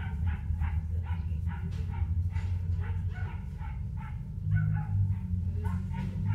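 Domestic tabby cat purring, a steady low rumble close to the microphone, with a quick series of short higher sounds over it.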